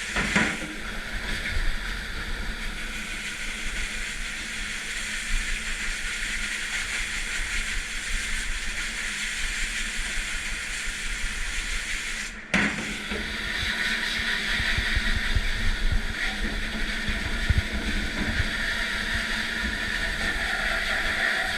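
Commercial dish room noise: a dish machine running with a steady hiss of spraying water over a low motor hum, briefly cutting out about halfway through.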